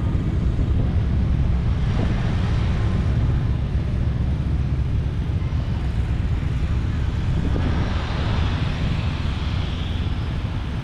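B-17 Flying Fortress's Wright R-1820 Cyclone nine-cylinder radial engines running steadily with a deep, rapid low rumble. A brighter rushing hiss grows in from about eight seconds in.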